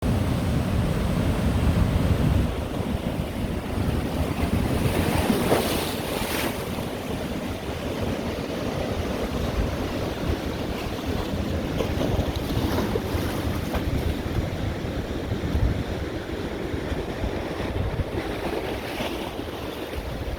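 Ocean surf washing and breaking on the shore, with waves swelling into louder hissing breaks about five seconds in and again near the end. Wind buffets the microphone with a low rumble, strongest at the start.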